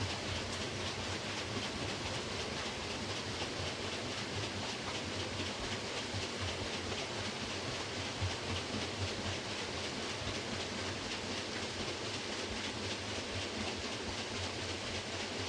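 Water wheel of a historic watermill turning, with water pouring and splashing off it in a steady rush and fine patter.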